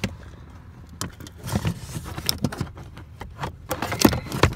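Replacement HVAC blower motor being handled and fitted up under a pickup's dash: irregular plastic clicks, knocks and short scrapes, coming more often toward the end.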